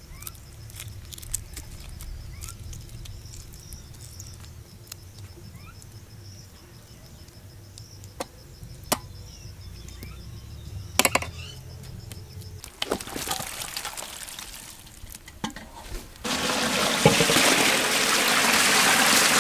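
Small sharp clicks and taps of a knife working through fresh prawns, over a steady faint high tone. About three-quarters of the way in, water starts to gush up and spill out of a pipe's mouth, abruptly and much louder, and keeps pouring.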